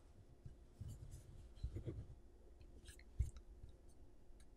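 Faint handling of a metal aerosol spray-adhesive can as fingers turn it: soft rubs and small ticks, with one sharper tick a little over three seconds in.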